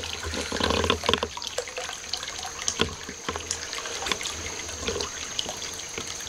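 Water trickling steadily, with many small scattered drips.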